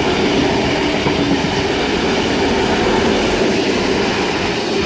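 A Sydney Trains S set, an eight-car double-deck electric suburban train, passing through the station on the main line: a steady loud rumble of wheels on rails as the cars go by.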